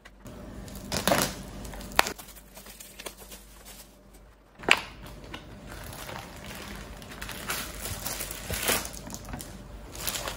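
Scissors cutting through the plastic wrap of a puff pastry box, then the cellophane and plastic bag crinkling as the packaging is pulled open, with a couple of sharp clicks about two and five seconds in.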